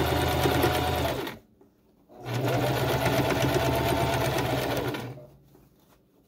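Small domestic electric sewing machine stitching through gabardine in two runs: a short burst of about a second at the start, a brief stop, then a longer run of about three seconds that builds up to speed and winds down.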